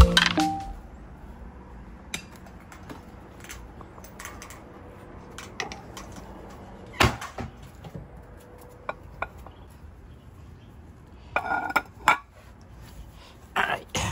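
Scattered light clinks and knocks of dishes being handled and carried: a ceramic bowl on a plate. Near the end come a few louder short sounds.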